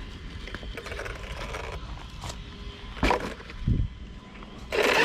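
Arrma Kraton 6S RC truck's brushless drive running as it moves over rough ground, with scraping, a sharp knock about three seconds in, and a loud burst of noise near the end.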